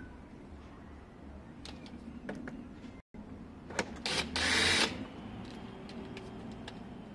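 Cordless drill running in one short burst of about a second, drilling through plastic at the scooter's number plate mount. A few light handling clicks come before it.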